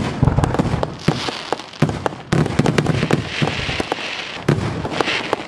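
Aerial firework shells bursting, with two deep booms about two seconds apart. Each boom is followed by a hissing crackle and a scatter of sharp pops from the falling stars.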